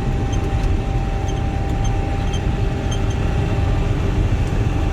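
Swather running steadily while cutting wheat, a constant low engine and machinery rumble with a faint steady whine that fades out a little past halfway.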